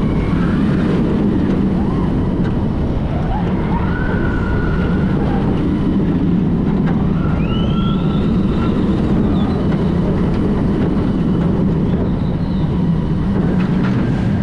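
Steel roller coaster train running along its track at speed: a loud, steady rumble of wheels on the rails.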